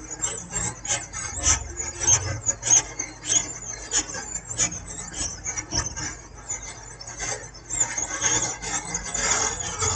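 Rapid, irregular scratchy rubbing and scraping strokes on a laptop motherboard around its freshly reflowed microcontroller, over a faint steady hum.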